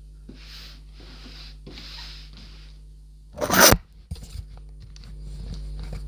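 Large cardboard model-kit box being handled and turned over: several short rustling scrapes of cardboard rubbing, then one loud brief scrape about three and a half seconds in, followed by a few light knocks.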